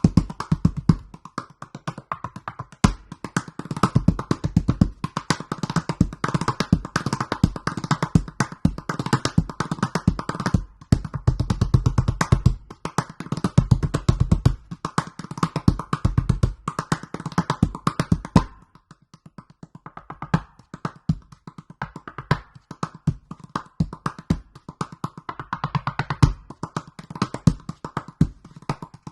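An extra-large 47 cm calabash gourd drum played in a fast groove: deep bass strokes mixed with quick, sharp taps. About 18 seconds in, the bass strokes stop and the playing turns to sparser, lighter taps.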